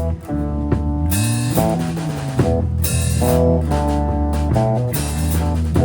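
Live band playing an instrumental passage of a country-rock song between vocal lines: guitar, bass and drum kit with cymbal crashes. A slide up in the low notes comes about a second in.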